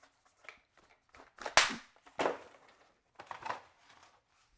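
Packaging being handled as a small accessory is pried out of a tight slot in a keyboard box: three sharp bursts of scraping and crackling, the loudest about a second and a half in.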